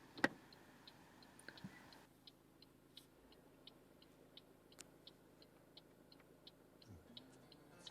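Faint, even ticking about three times a second, with one sharper click about a quarter second in.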